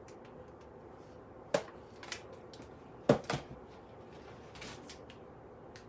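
A few sharp clacks and knocks of small objects being handled and set down on a counter. The loudest comes about three seconds in, with a quick second knock just after it; softer rustling follows.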